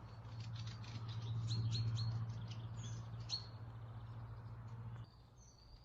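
Small birds chirping with short high calls, over a low steady hum that cuts off about five seconds in.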